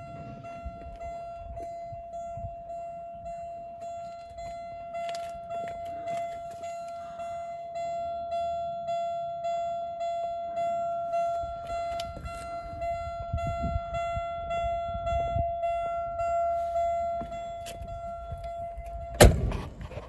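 A Jaguar XJS's in-car warning buzzer sounding one steady high tone while the driver's door stands open, cut off near the end by the door slamming shut.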